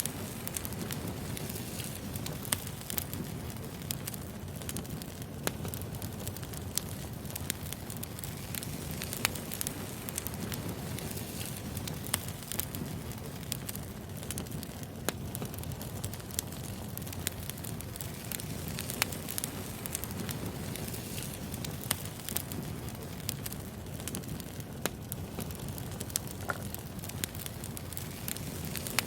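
Wood fire burning, with a steady low rumble and frequent sharp crackles and pops of burning logs at irregular intervals.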